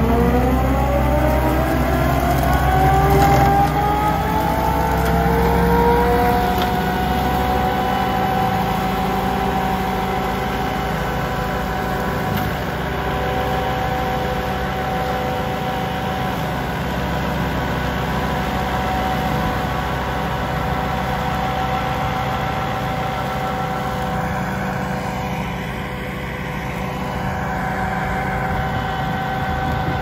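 Case SR200 skid steer's diesel engine running under load while it drives a Himac 1,800 mm mulcher slasher hydraulically. Over the first several seconds a rising whine climbs as the slasher's rotor spins up, then it holds a steady pitch while the machine cuts grass.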